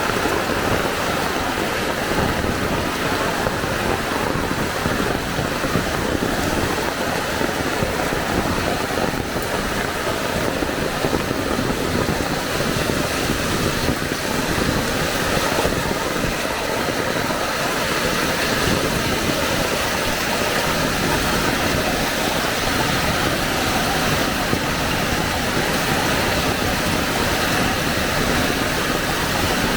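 Heavy rain falling steadily, an even hiss that keeps a constant level throughout.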